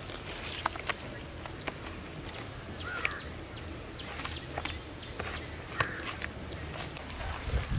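Hands squishing and working a thick wet spice paste in a metal tray, giving scattered short wet clicks and smacks. A bird calls briefly about three seconds in.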